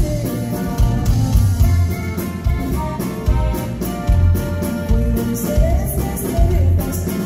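Live norteño band playing: button accordion, guitar, bass and drum kit, with a sung lead vocal over a steady bouncing bass-and-drum beat.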